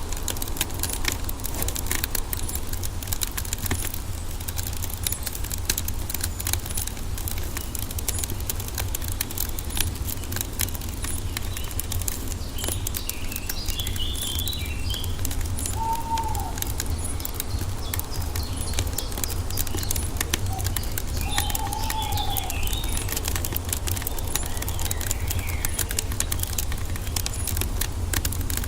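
Wood fire crackling with many small pops over a steady low rumble, with birds chirping and calling now and then in the background.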